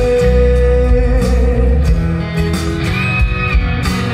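Pop-rock song played loud: a sung note is held for the first second or so and fades, then a guitar-led instrumental passage carries on.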